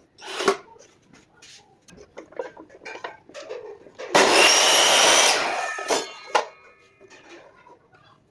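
Miter saw cutting through wood for just over a second about four seconds in, its blade whine fading away afterwards as it winds down. Light clicks and knocks of handling come before and after.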